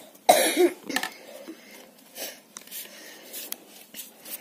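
Cloth rustling and small clicks as a turtle wrapped in a towel is handled close to the phone, with a brief voice sound near the start.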